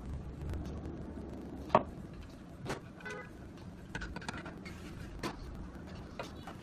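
A few sharp clicks and knocks as a glass bottle and a plastic cup are handled on a tabletop, the loudest about two seconds in, over a steady low background rumble.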